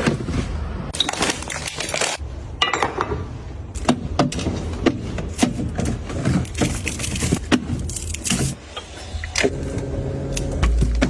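Small objects being handled and set down: a busy run of clicks, knocks and light rattles, like containers and packaging being sorted.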